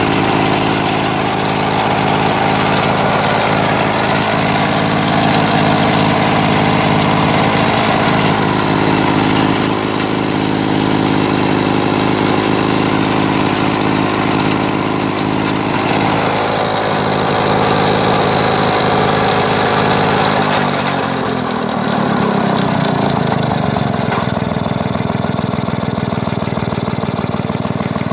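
The two-stroke engine of an early-1950s Jacobsen Lawn Queen reel mower runs steadily on pre-mix fuel during its first start after being rescued from scrap. About two-thirds of the way through, its pitch slides down and it settles at a slower speed.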